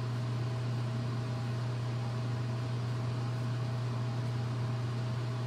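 Steady low hum with air hiss from a commercial kitchen's exhaust hood fan running.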